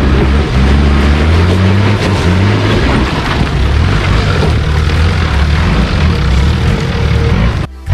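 Engine of a lifted off-road 4x4 working hard, revving up and down as it crawls up a rock step, with tyres scrabbling on rock and dirt. The sound breaks off briefly near the end.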